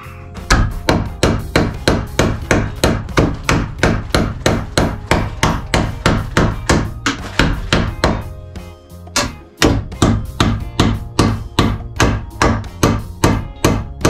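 Hammer driving fasteners into a hard 2x4 wood stud: quick, steady blows about two to three a second, with a short pause about eight and a half seconds in.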